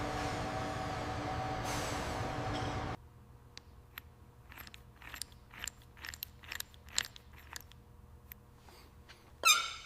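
A steady mechanical hum that cuts off about three seconds in, followed by a run of irregular small clicks and crunches, like workshop hand-tool work, and a louder sound falling in pitch near the end.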